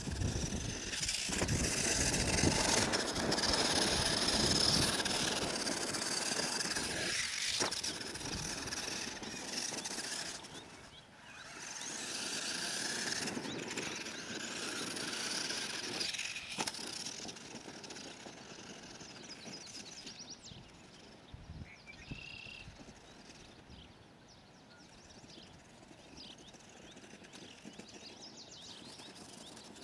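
Traxxas 1/16 Summit RC truck's brushed electric motor and gears whining as it drives the dirt track. It is loudest for the first ten seconds, drops out briefly, comes back for a few seconds, then fades away.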